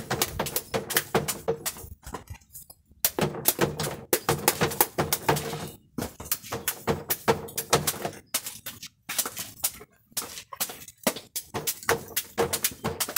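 Machete chopping a spineless forage cactus (palma) pad into small pieces: quick, sharp chops several a second, in runs broken by short pauses.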